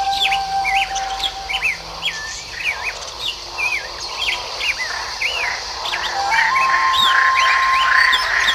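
Birds chirping rapidly: many short, curving up-and-down notes, several a second. A soft held tone runs underneath and steps up in pitch about six seconds in.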